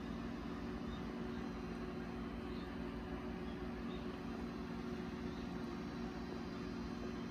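A steady machine hum with an even hiss, unchanging throughout.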